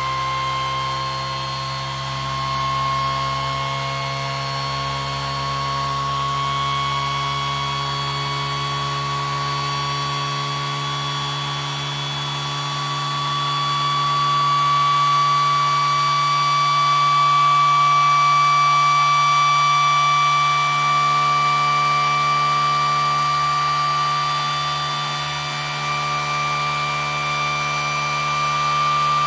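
Homemade pulse motor running unloaded on one input battery, giving a steady high-pitched whine that slowly climbs in pitch as the rotor speeds up, over a lower steady hum.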